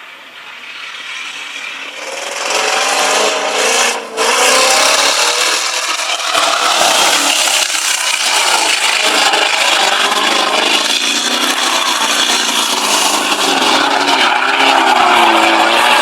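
Off-road vehicle engine running hard, its pitch rising and falling as the revs change, with a coarse rasping noise over it. It builds up over the first few seconds, dips briefly about four seconds in, then stays loud.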